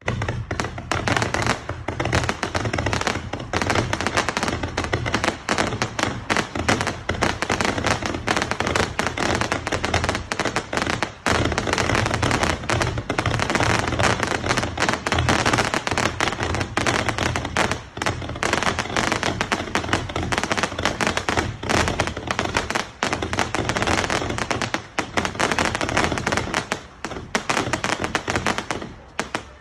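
TOP 167 'Manado Lovers' 457-shot fireworks cake, with 0.5-inch and 1.2-inch tubes, firing in a rapid, unbroken stream of shots and bursts, many each second. The shots thin out slightly near the end.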